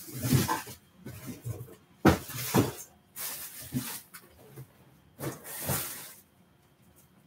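Handling noise: four bursts of rustling and knocking, a second or two apart, with quiet between.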